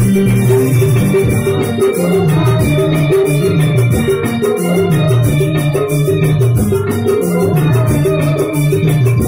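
Loud stage music over loudspeakers, with a quick, steady percussion beat under repeating melody notes.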